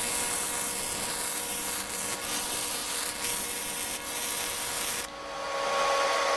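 TIG welding arc on an aluminum radiator tank: a steady crackling hiss with a few brief dips, cutting off abruptly about five seconds in as the arc is broken.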